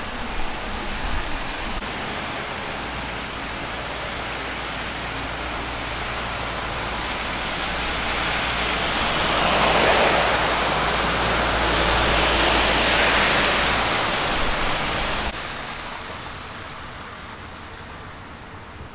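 Vehicles on a rain-soaked road, tyres hissing through the water. The hiss swells to its loudest as a car passes close about ten seconds in, then drops suddenly to a quieter steady rush.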